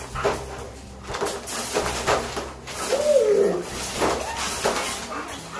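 German Shepherd moving about inside a wire dog crate, the crate clanking several times, with one short falling whine about three seconds in.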